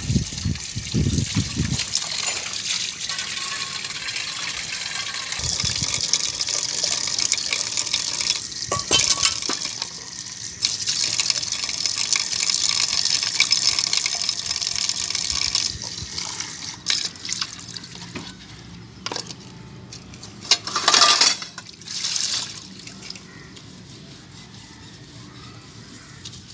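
Water running from a tap over a cement basin while steel dishes are scrubbed and rinsed under it. The flow eases about two-thirds of the way through, leaving a few clinks of steel dishes and a short splash.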